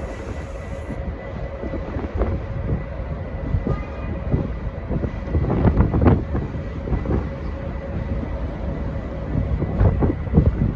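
Train moving along the track at a station platform: a low rumble with wheels clicking and knocking over rail joints, the clicks bunching up about halfway through and again near the end.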